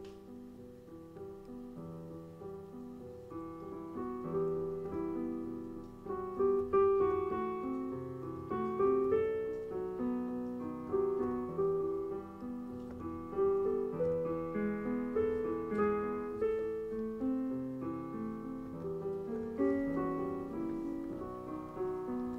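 Piano playing the slow instrumental introduction to a song, held chords under a simple melody, swelling in loudness over the first few seconds.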